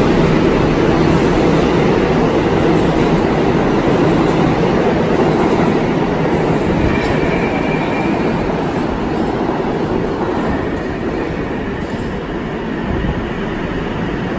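New York City Subway 7 train of R188 cars running along the platform: a loud, steady rumble of wheels and traction motors, fading gradually over the second half as it moves away. A brief high-pitched whine comes about seven seconds in.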